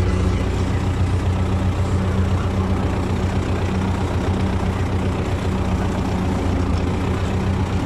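T-40 tractor's air-cooled diesel engine running steadily at low speed, a deep, even drone.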